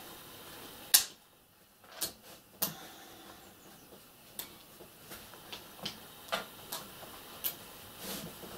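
Irregular light clicks and taps, with faint rustling, as a long sewing needle and thread are worked through a stuffed fabric hare's head by hand; a sharp click about a second in is the loudest.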